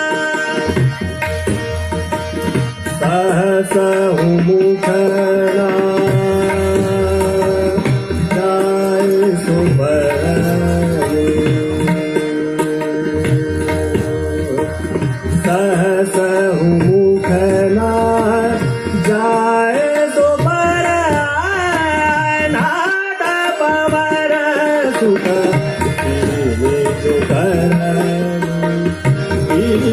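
Male vocalist singing Hindustani classical raag Hansadhwani with tabla and harmonium accompaniment. The voice holds long notes, then runs through quick ornamented phrases about two-thirds of the way in.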